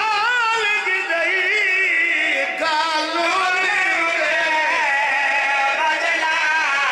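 Men's voices singing a mournful chant together into microphones, the lead voice wavering on long drawn-out notes.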